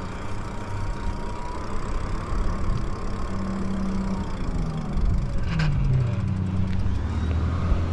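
Lyric Graffiti e-bike being ridden: steady wind rush and tyre rumble, with a faint whine that sinks in pitch about four seconds in and a short click about five and a half seconds in.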